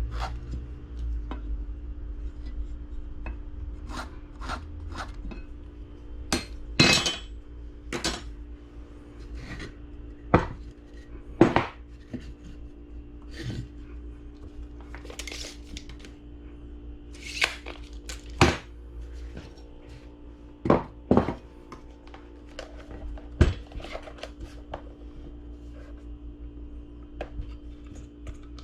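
Irregular clicks, knocks and clinks of hard objects being handled and set down, about twenty in all, over a steady low hum.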